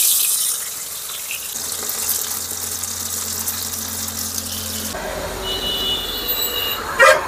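Masala-coated raw banana pieces sizzling as they fry in hot oil, a loud steady hiss that eases off about five seconds in. After that a low hum is left.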